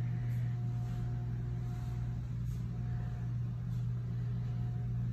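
Steady low mechanical hum with a faint thin whine above it.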